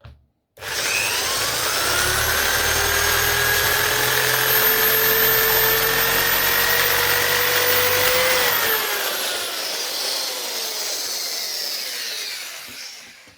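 Dremel rotary tool switched on and run, its high whine climbing slowly in pitch, used to drill out holes in 3D-printed plastic parts; about eight seconds in it is switched off and the whine falls away as it spins down.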